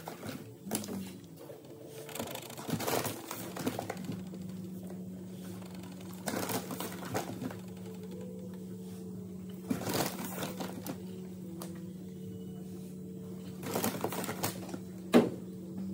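Milk replacer powder being scooped into a pail on a dial scale: scattered scrapes, rustles and clatters of the scoop, in clusters, with a sharp click near the end. A steady low hum sets in a few seconds in.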